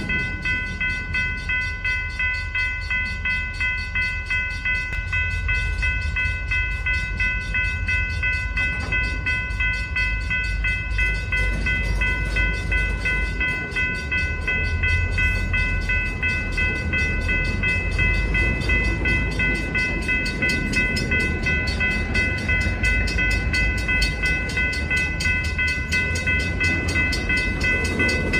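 Freight cars of a slow-moving train rolling past close by, their wheels giving a continuous low rumble. Over it runs a steady, unchanging high ringing tone of several pitches.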